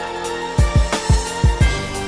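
Background music with a deep, booming bass-drum beat under sustained pitched tones.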